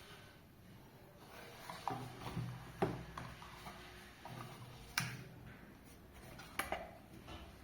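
Small items and packaging being handled, with a scatter of light clicks and taps and four sharper clicks about 2, 3, 5 and 6.5 seconds in.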